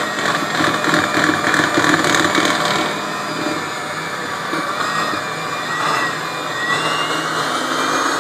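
Electric hand mixer running steadily, beating cake batter.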